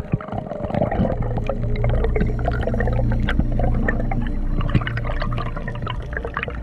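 Underwater sound on a reef, heard through a submerged camera. There is a steady low rumble of moving water, building about a second in, under a dense crackle of short clicks.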